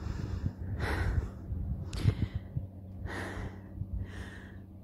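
A person breathing heavily close to the microphone, four loud breaths about a second apart, out of breath after running up 450 steps. A low rumble lies underneath.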